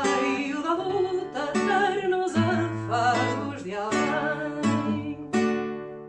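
Acoustic guitar strummed with a voice singing over it; a last chord struck near the end rings out and fades.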